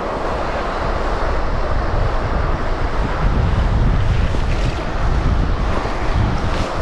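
Wind buffeting the microphone over rippling river water: a steady low rumble with the hiss of the current, as a fish is reeled in on a spinning reel.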